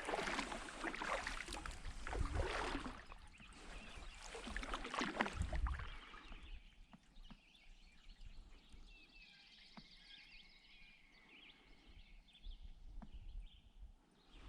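Canoe paddle strokes in the water, a swish and splash with a low knock every two and a half to three seconds, then quieter water with softer sounds over the last half.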